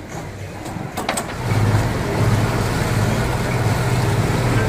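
A boat's engine running steadily, heard on deck over the rush of wind and water; it comes up louder about a second and a half in, after a couple of sharp clicks.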